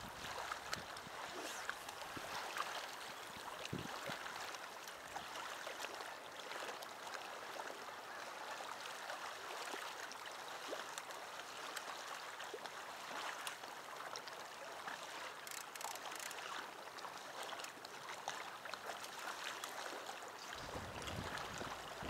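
Small waves lapping against a concrete boat ramp and rocky lake shore: a steady, soft wash of water with faint crackles.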